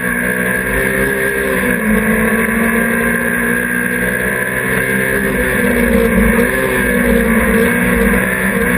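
Hill-climb race car's engine running hard, heard from inside the stripped cabin, its note dipping briefly about two seconds in and again about six and a half seconds in.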